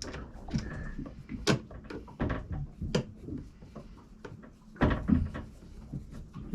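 Scattered clicks and knocks from hands working a cabinet door and its new push-button latch while it is being fitted, the sharpest about a second and a half in and around five seconds in.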